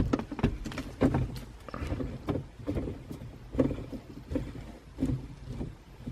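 Hand-handling noise from unscrewing a car's shift knob and pulling at plastic console trim: scattered light clicks, knocks and rubbing, irregular throughout.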